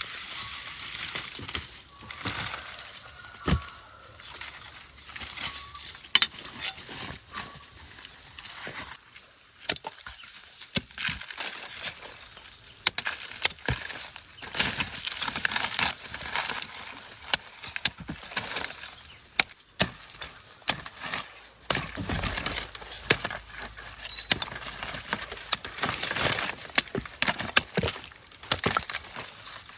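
Irregular run of clinks, taps and knocks from hard objects being handled, at times several a second, thickest from about halfway through and again in the last third.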